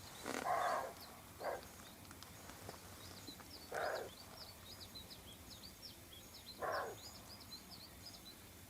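Distant raccoon dog barking four times at uneven intervals, short hoarse calls, over a constant patter of small birds chirping.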